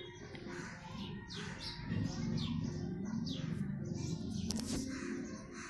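Birds chirping faintly in the background: repeated short, falling chirps about twice a second, over a low steady hum.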